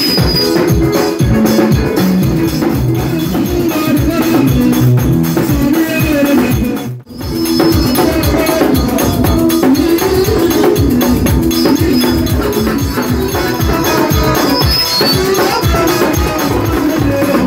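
Live band music: an electronic keyboard playing over a fast, steady percussion beat. The sound cuts out for a moment about seven seconds in.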